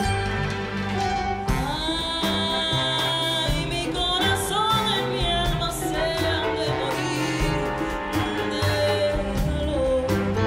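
A woman singing long notes with a wavering vibrato over a symphony orchestra and band; the voice comes in about a second and a half in.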